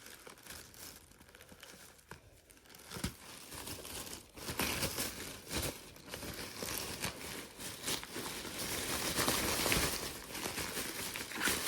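Gift packaging being handled and torn open by hand: irregular crinkling and tearing, sparse at first and getting busier from about four seconds in.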